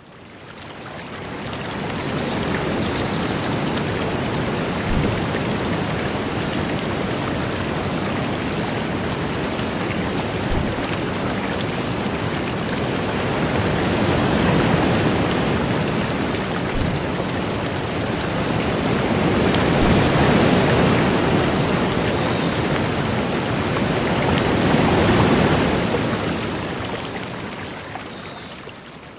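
Rushing river water, a steady roar that swells a few times, fading in at the start and out at the end.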